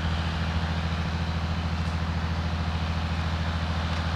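A motor vehicle's engine running at a steady, unchanging speed: a continuous low hum.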